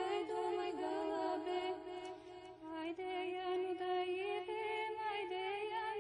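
Background music: a slow, chant-like melody of long held notes with small wavering turns.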